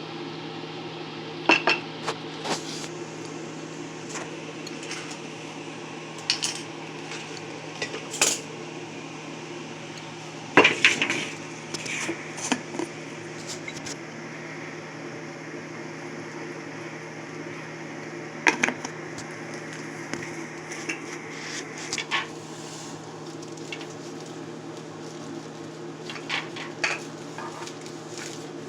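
Kitchen dishes and utensils clinking and clattering now and then, with a cluster of knocks about a third of the way in, over a steady low appliance hum.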